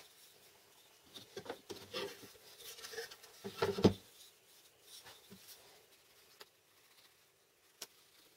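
Light knocks, taps and rubbing of plywood pieces being handled and fitted against each other on a wooden workbench. The handling is busiest in the first half, with the loudest knock about four seconds in, and only a few faint taps follow.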